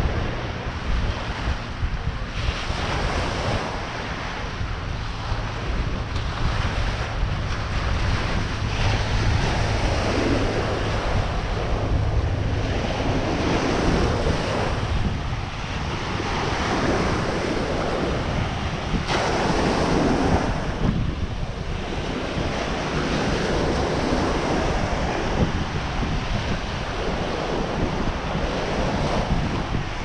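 Ocean surf breaking and washing up on a sandy beach, swelling and easing as each wave comes in. Wind rumbles on the microphone throughout.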